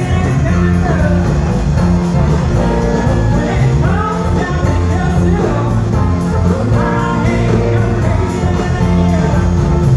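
Live rock band playing: electric guitars, bass and drums, with a woman singing lead.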